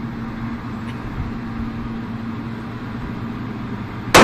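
Steady low hum of background noise, then, right at the end, a sharp gunshot with a short echoing tail from a Glock 22 .40-calibre pistol: the first shot of a rapid five-round string.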